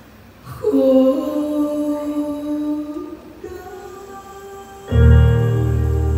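Live ballad with band: after a hushed moment, a single long melody note is held from about half a second in, rising slightly in pitch near its end. About five seconds in the full band comes in loudly with deep bass.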